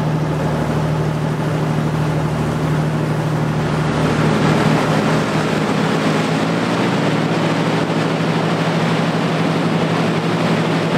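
Boat engine running steadily under way, a constant low hum, with the rush of churning wake water behind it growing a little louder about four seconds in.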